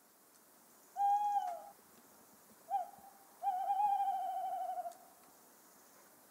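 Tawny owl hooting: one long hoot about a second in, a short note, then a long wavering, quavering hoot.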